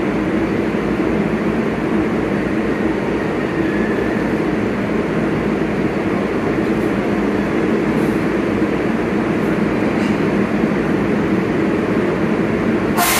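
R188 subway train rolling slowly along the platform and coming to a stop, a steady rumble of wheels and motors. A short, sharp hiss comes right at the end.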